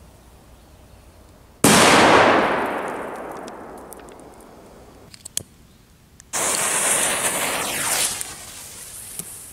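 Firecracker going off: a sudden loud bang about a second and a half in that trails away over a few seconds. About six seconds in, a second sudden loud blast of hissing noise follows, holding for under two seconds before it fades.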